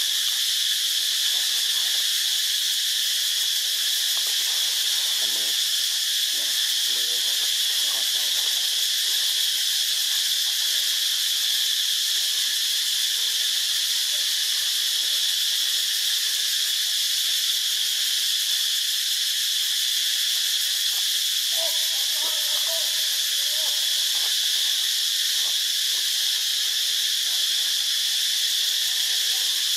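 Steady, high-pitched insect chorus. A few faint, brief lower sounds come through beneath it, one about two-thirds of the way through.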